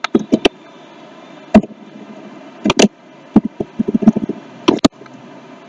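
Computer keyboard being typed on: single key clicks and short irregular runs of clicks, over a faint steady hiss.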